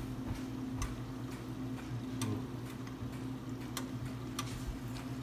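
Brown onion gravy heating toward a boil in a skillet, with irregular small pops and ticks of bubbles bursting about once a second over a steady low hum.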